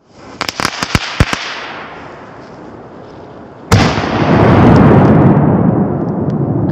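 Funke Titanblitz 3 Crackling firecracker going off. Its pre-burner hisses with a handful of sharp pops for about three and a half seconds. Then comes a sudden loud bang, followed by dense crackling that slowly fades.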